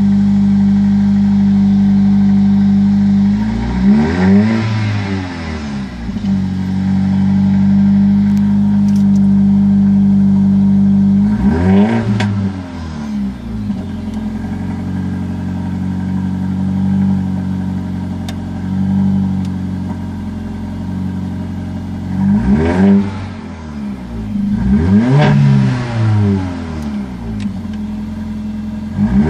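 Mercedes-AMG CLA 45's 2.0-litre turbocharged four-cylinder idling, blipped four or five times in quick revs that rise and fall back to idle, with the exhaust banging on the revs. Heard from inside the cabin.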